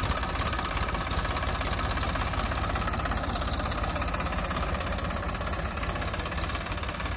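TAFE 1038 DI tractor's direct-injection diesel engine running steadily.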